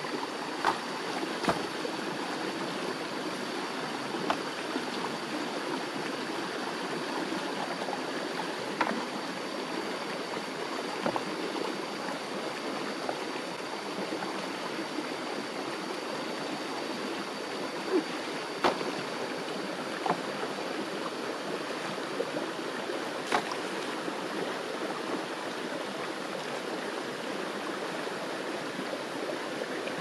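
Small rocky stream flowing over boulders in a steady rush, with a few sharp clicks scattered through it as hands work stones in the water.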